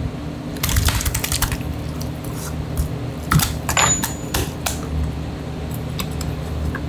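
Clusters of sharp clicks and taps, one about a second in and another around three to four seconds in, as a flatfish is worked over a plastic cutting board with a metal nerve-spiking rod and a knife during ikejime. A steady low hum runs underneath.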